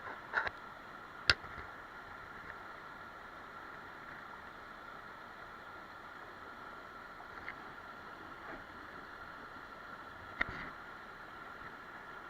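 Mountain stream flowing steadily over rocks, with a few sharp clicks: a loud one about a second in and another about ten seconds in.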